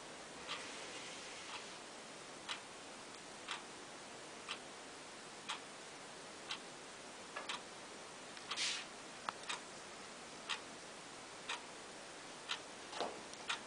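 Clock ticking steadily, about once a second, over a faint steady hiss. A few longer, louder noises come in around two-thirds of the way through and again near the end.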